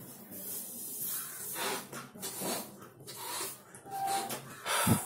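A rubber balloon being blown up by mouth: about half a dozen breathy puffs of air into it, with quick inhalations between. A short, low thump near the end is the loudest sound.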